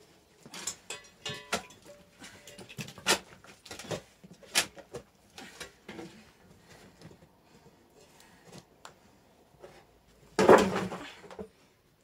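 Clattering of household items being handled: scattered knocks and clicks, with one louder rough burst about ten and a half seconds in that lasts about a second.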